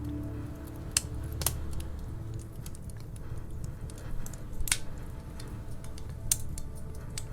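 Wood fire crackling in a fireplace: irregular sharp pops and snaps over a steady low rumble of burning.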